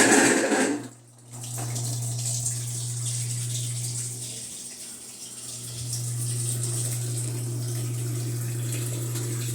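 Electrolux LTE12 top-loading washing machine with water rushing through it over a steady low electrical hum; the hum weakens for about a second midway, then returns.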